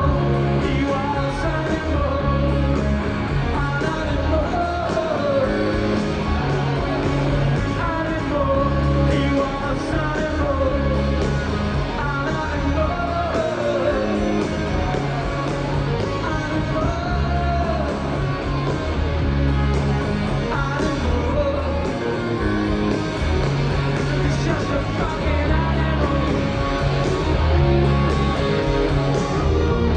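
Live rock band playing loudly: a male singer over electric guitars, bass guitar and drums, with a steady driving beat.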